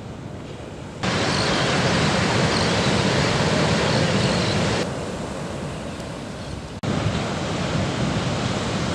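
Ocean surf breaking on a beach, with wind on the microphone: a steady rushing hiss. It jumps louder about a second in, eases a little around five seconds, and cuts out for an instant near seven seconds.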